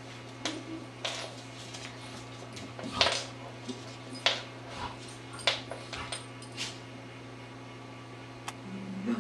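A golden retriever and a beagle puppy play-wrestling on a laminate floor: irregular sharp scuffles and taps, the loudest about three and four seconds in, over a steady low hum.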